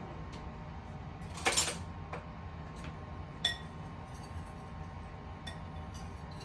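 A spoon stirring tapioca starch into cold water in a cup, clinking against its side. There is a short scraping rush about a second and a half in, then a few light clinks, one of them ringing, all over a steady low hum.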